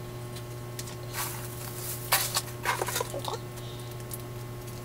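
Crinkle-cut shredded paper filler rustling in a cardboard box as a hand digs through it, in a few short bursts.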